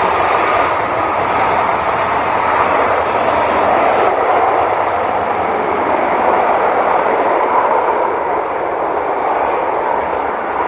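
Jet engines of an Airbus A330 running as the airliner rolls along the runway: a loud, steady roar.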